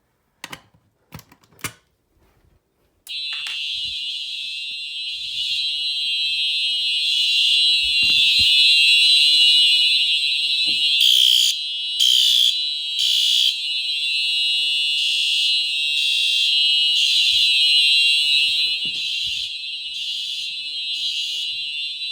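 Smoke detector alarm test: a few clicks, then, about three seconds in, the detector's sounder starts a loud, high-pitched, steady shrill tone. The tone is briefly broken a few times near the middle.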